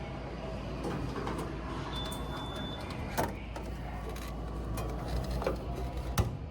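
Vending machine in use: a short electronic beep about two seconds in, and sharp clicks and clunks of the mechanism, the loudest about three seconds in and just before the end, over a steady low background hum.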